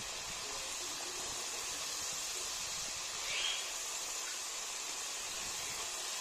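Potato sticks deep-frying in hot oil during the first, par-cooking fry, with a steady sizzling hiss. A brief, high rising chirp about halfway through stands out above the sizzle.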